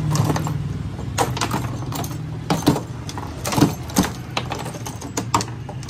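Foosball table in play: plastic players striking the ball and the steel rods clacking, an irregular string of sharp knocks, the loudest a little over halfway. A steady low hum sits underneath and fades out about halfway.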